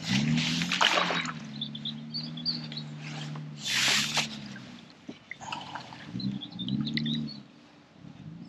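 A hooked carp splashing and thrashing at the surface close to the bank while being played, in a few loud bursts, the biggest near the start and about four seconds in. A low wavering hum runs between the splashes.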